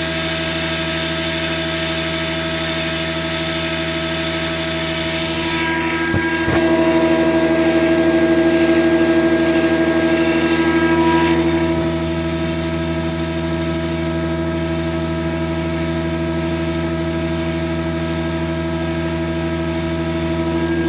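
Holzmann HOB 400V motor and its faulty gearbox running with a steady whine of several tones. About six and a half seconds in there is a short knock and it gets louder and brighter, then eases back a little around twelve seconds.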